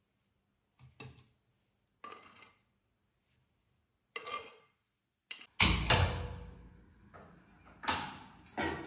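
A metal spoon scraping thick yogurt from a clay bowl and tapping it into a plastic blender jar, a few soft scrapes about a second apart. About five and a half seconds in there is a much louder metal clatter that rings on, followed by two more sharp knocks of kitchen utensils or a gas stove near the end.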